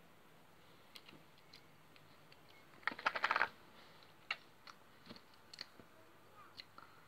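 A plastic sherbet packet crinkling in a quick burst of sharp crackles about three seconds in, with scattered light clicks and taps before and after as it is handled.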